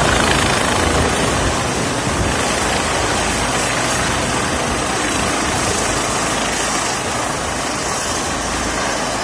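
Rescue helicopter flying past low overhead: a steady rush of rotor and turbine noise that slowly grows fainter as it moves away.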